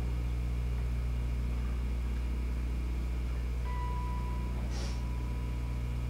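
Steady low electrical hum under faint hiss, with a thin steady high tone coming in a little past halfway and a brief soft hiss near the end.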